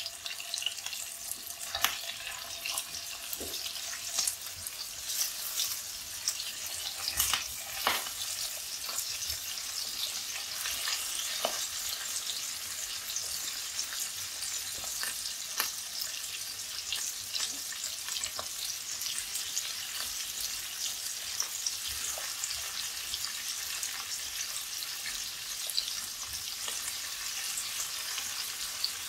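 Masala-coated sardines shallow-frying in hot oil with curry leaves: a steady sizzle with crackling spatter, and sharper pops and clicks through the first dozen seconds.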